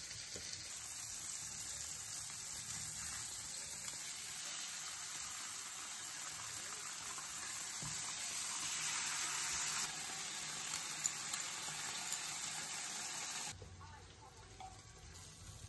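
Fish fillets sizzling in oil in a nonstick frying pan, a steady hiss with a few light clicks of metal tongs. The sizzling cuts off suddenly near the end.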